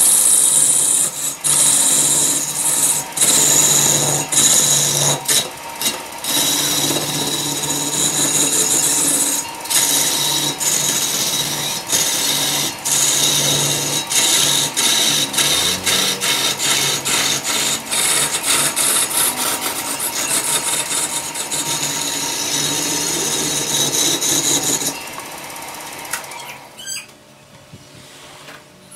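Hand-held turning tool cutting a spinning wooden spindle on a wood lathe: a continuous scraping hiss of shavings being peeled off, broken by many short gaps where the tool eases off, over a steady hum from the running lathe. Near the end the cutting stops and only the quieter lathe is left.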